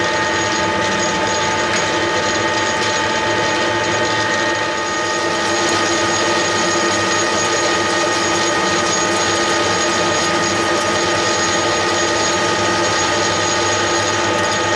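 Metal lathe running under power, with a steady multi-tone gear whine over a mechanical hum while turning a steel blank held between centres. It gets slightly louder from about five seconds in.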